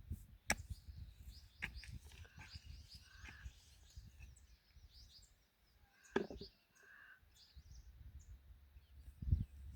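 Small birds chirping and calling, with short high notes scattered throughout, over a low rumble, with a few sharp knocks, the loudest about a second before the end.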